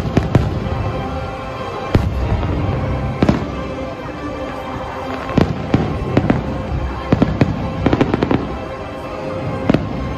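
Aerial fireworks bursting in a loose series of sharp bangs at irregular intervals, with a quick cluster of reports about seven to eight seconds in. Music plays steadily underneath.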